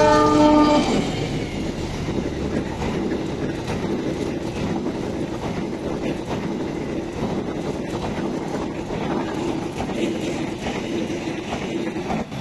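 A diesel passenger locomotive sounds a brief multi-tone horn blast, about a second long, as it reaches the camera. Then the coaches roll past close by, a steady rumble with the clatter of wheels over the rail, until the train has gone by near the end.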